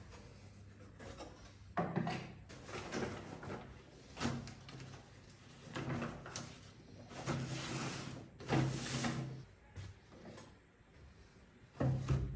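Wood being worked with hand tools: a run of irregular scraping strokes, some about a second long, mixed with light knocks of wooden pieces.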